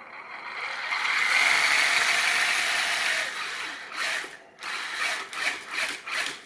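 RC crawler's geared drivetrain and two-speed transmission, driven by a Hobbywing Quicrun Fusion brushless motor, spun up with the wheels off the ground. The gears run up over about a second and hold for a few seconds, then come several short throttle blips near the end.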